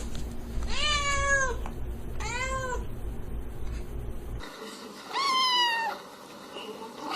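Cat meowing three times, each meow rising then falling in pitch, with a fourth just starting at the end. A low background hum stops abruptly partway through.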